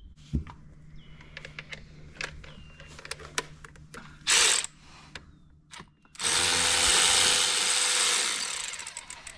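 Impact wrench working a bolt: a short burst about four seconds in, then a run of about three seconds that trails off near the end. Scattered clinks of metal tools come before it.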